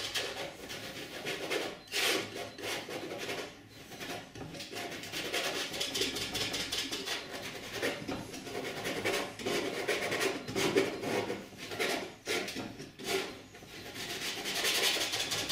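A steel painting knife scraping and smearing oil paint across a stretched canvas in a series of short strokes with brief pauses between them, blending the sky colours into smooth gradients.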